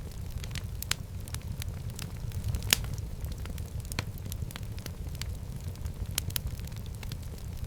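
Wood fire burning in a fireplace: a steady low rumble of flames with irregular crackles and pops, the loudest pop a little under three seconds in.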